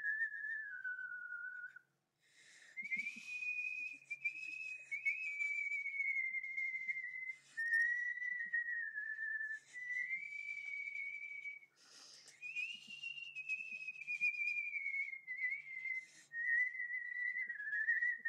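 A person whistling a slow, wavering tune, the pitch gliding between notes in several long phrases with short breaks between them.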